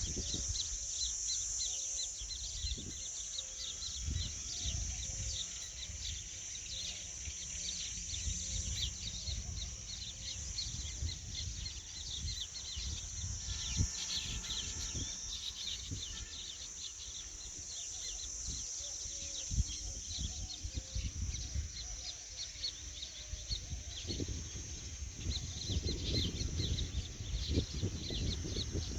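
Outdoor nature ambience: a steady high insect drone with many small bird chirps over it, and low wind rumble on the microphone.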